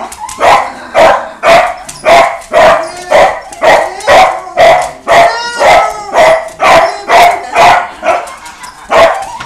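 Pet dog barking over and over in excited greeting as its owner comes home, about two barks a second, with a last bark near the end.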